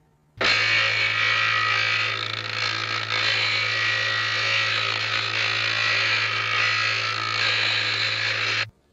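A dense chorus of many overlapping calls over a steady low hum. It cuts in abruptly about half a second in and stops just as abruptly near the end.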